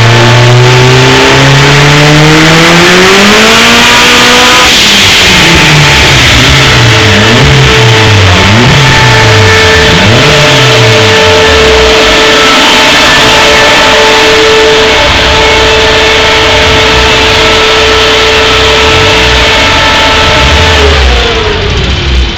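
Opel Kadett's turbocharged C20LET 2.0-litre four-cylinder on a chassis dyno, revving up in a full-throttle pull for about the first five seconds. The throttle then shuts and the revs fall and rise unevenly as the run winds down, over a steady whine that dies away near the end.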